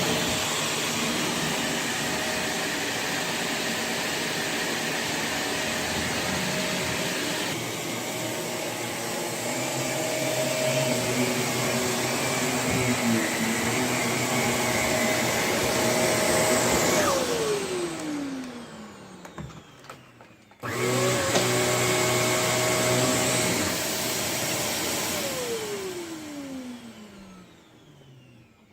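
Shark Navigator Lift-Away NV351 upright vacuum running steadily, then switched off about 17 seconds in, its motor whine falling in pitch as it spins down. It is switched back on about three seconds later, runs a few seconds, and is switched off again, winding down to quiet near the end.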